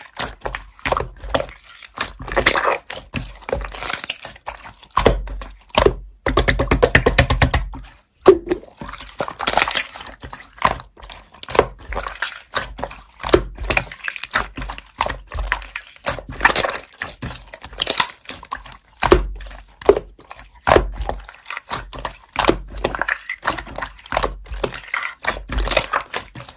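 Slime being squeezed and pressed by hand, making wet clicks and pops, with a quick run of crackling pops about six seconds in.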